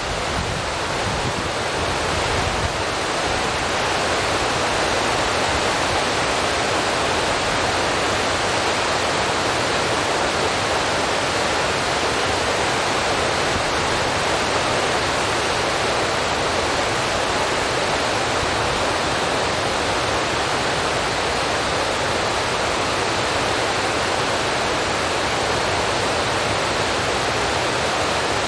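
Steady rushing noise with no tone or rhythm, swelling a little over the first few seconds and then holding level.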